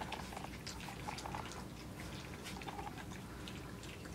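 Several 3-week-old Australian Shepherd puppies lapping puppy mush from a metal pan: a quiet, irregular run of small wet licks and smacks.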